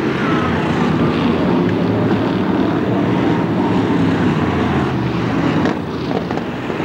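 Several BriSCA stock cars racing, their engines running hard together in a loud, steady din that dips slightly about six seconds in.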